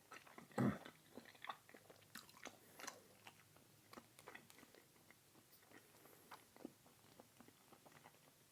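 A person chewing food with the mouth close to the microphone: soft, irregular wet clicks and smacks, with one louder mouth sound about half a second in.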